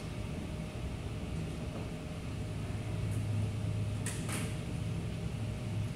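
Window squeegee worked along the bottom of a glass storefront pane, with two quick taps close together about four seconds in, over a steady low hum.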